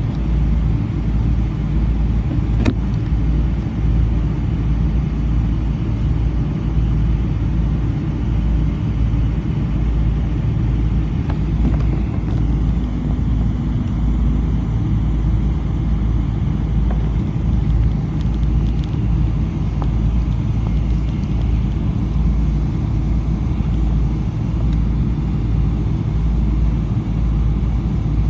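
Steady low rumble inside the cabin of a Boeing 777-300 with Rolls-Royce Trent 800 engines, with a few faint clicks.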